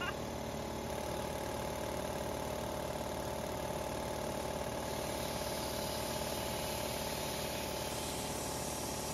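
Upright Sanborn air compressor running steadily while a snow tube is filled through an air hose.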